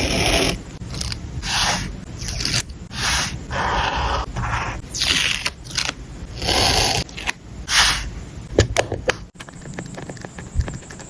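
Paper and stickers being handled on a journal page: a series of short scraping rustles, then a few sharp clicks near the end, after which only a quieter, fainter crackle remains.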